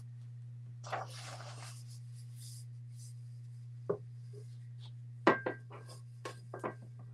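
Tape pulled off its roll with a short rasping tear about a second in, followed by a few sharp knocks and taps of the roll being handled, the loudest a little after five seconds. A steady low hum runs underneath.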